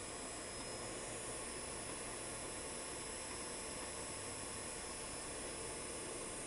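Shop vac used as a forge blower, running steadily with a constant hiss of air and a faint hum.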